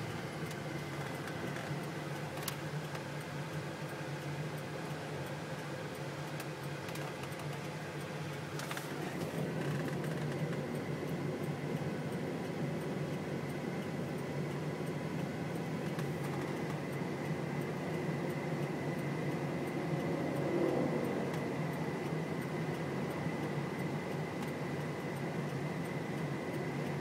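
Steady hum of a vehicle's engine and ventilation fan heard from inside the cab, with a couple of faint clicks; it gets a little louder about nine seconds in.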